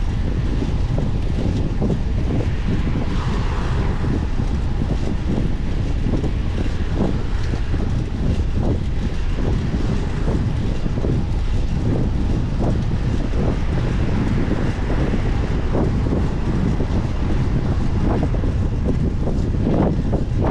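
Steady wind rush over the microphone of a camera on a moving bicycle, with low road rumble and scattered light clicks and ticks.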